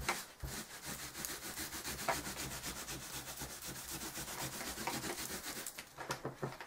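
A baby wipe rubbed vigorously back and forth across a stencil on a paper towel to clean the paint off it: quick, even scrubbing strokes that thin out to a few separate wipes near the end.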